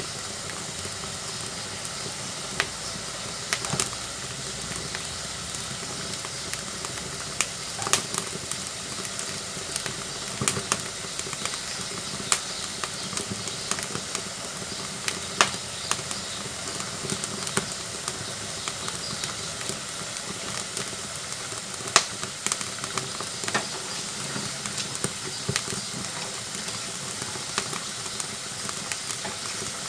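Firewood burning in a wood-fired cooking stove: a steady hiss with irregular sharp crackles and pops, a few louder snaps among them.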